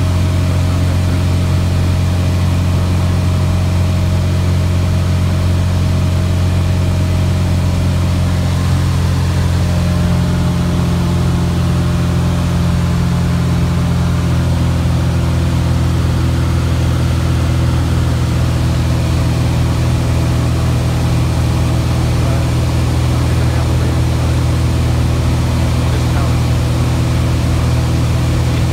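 Cockpit drone of a Cessna O-2A Skymaster flying on its rear engine alone, a six-cylinder Continental IO-360, with the front engine shut down and its propeller feathered. The steady engine note shifts slightly about ten to fourteen seconds in.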